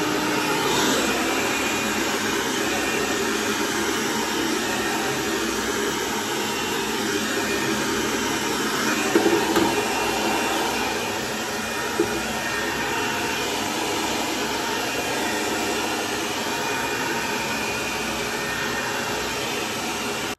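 Handheld hair dryer blowing steadily at full power while drying long hair, a loud even rush of air and motor that cuts off suddenly near the end.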